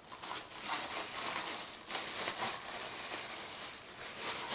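Rustling and crinkling of TV packaging, plastic wrap, foam and cardboard, handled and pulled about inside the box, with many small scratchy strokes.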